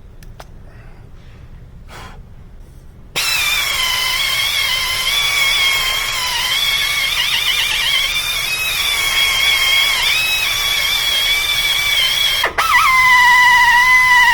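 A power tool starts about three seconds in and runs with a loud, steady whine whose pitch wavers slightly. It cuts out briefly near the end and starts again at a steadier, lower pitch.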